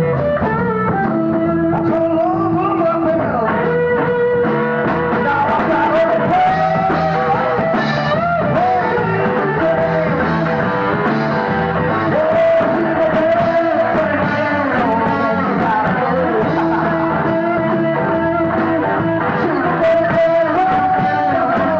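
A rock band playing live, guitar to the fore, with a melodic line of held notes and slides over a steady bass and rhythm part.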